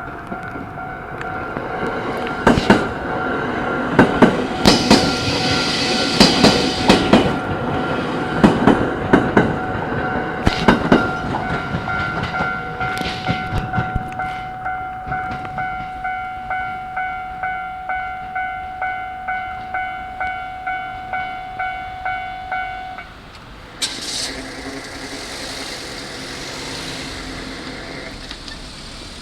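Japanese level-crossing warning bell ringing in a steady electronic ding-ding rhythm, about one and a half strokes a second, while a four-car E217 series electric train passes, its wheels clattering over the rail joints. The clatter fades after about ten seconds, and the bell stops about three-quarters of the way through.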